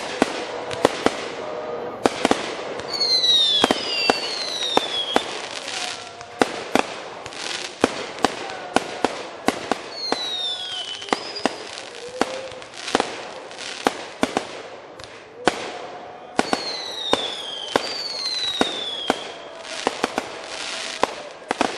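Fireworks going off in quick succession: many sharp bangs and crackles, broken several times by whistling shells whose pitch falls as they fly.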